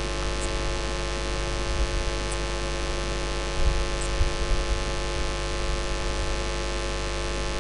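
Steady electrical mains hum with many overtones and a light hiss, carried through the mosque's microphone and recording chain. A few faint low bumps come about three and a half to four and a half seconds in.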